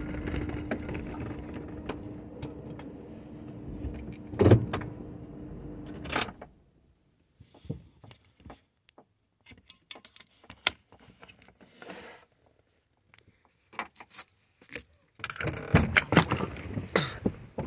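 Truck engine idling, heard from inside the cab, with a clunk about four and a half seconds in, then the engine is switched off and cuts out about six seconds in. After that, scattered clicks and keys jangling, busier near the end as the keys are handled by the door.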